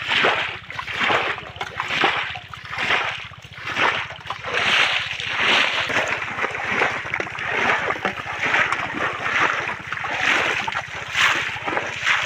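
Muddy water splashing in a quick, even rhythm of about two splashes a second, as it is scooped and flung out with a metal bowl.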